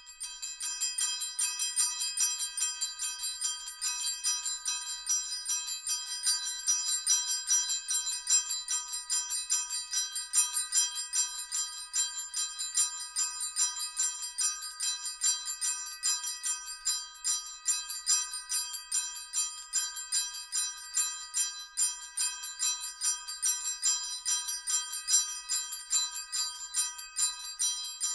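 Sleigh bells ringing in a quick, steady jingle, many small strikes a second over a bright, held ring.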